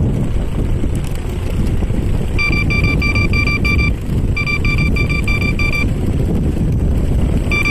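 Xiaomi Ninebot Plus self-balancing scooter riding fast over boardwalk planks, with a steady rumble of wheels and wind on the microphone. Its warning beeper sounds in three bursts of quick, evenly spaced beeps, about four a second, the last starting near the end.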